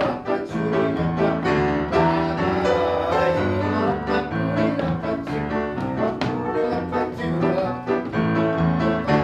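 Upright piano playing a tune, with repeated low bass notes under the melody.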